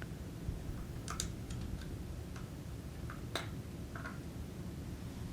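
A few light, sparse clicks and taps of the plastic parts of an X-ACTO School Pro electric pencil sharpener being handled as its white gear is pried off the carrier shaft and the cutter and carrier assembly is taken out. The sharpest click comes about three and a half seconds in.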